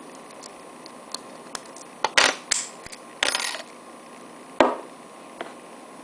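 Faint ticks of a pick working the pins of a Master No. 3 laminated steel padlock, then loud metal clinks about two seconds in, a short rattling clatter a second later and one sharp knock past four and a half seconds, as the opened padlock and the picking tools are handled and put down on a wooden desk.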